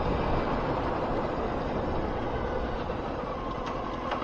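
Honda Fireblade inline-four sport bike on the move: a steady mix of engine, wind and road noise on the bike's microphone, getting a little quieter as the bike slows toward the traffic lights.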